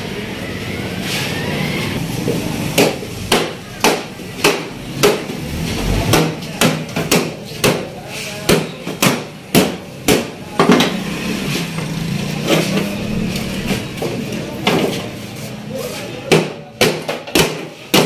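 Hammer blows on the metal parts of a window air conditioner being broken apart, in runs of sharp strikes about one to two a second with short pauses between the runs.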